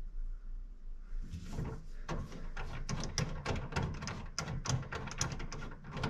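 Hand rivet nut insertion tool seated in a sheet-metal floor pan, its head turned by hand: a quick, uneven run of metal clicks starting about a second in and carrying on.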